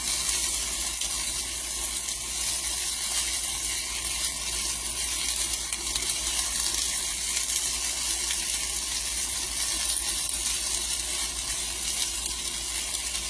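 Potatoes frying in oil in a nonstick pan: a steady sizzle.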